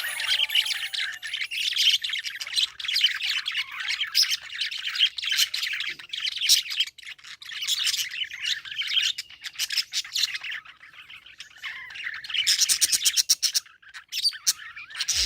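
Budgerigar chirping and chattering in a busy, high warble. It eases off about two-thirds of the way through, then picks up again with a quick run of clicking chirps near the end.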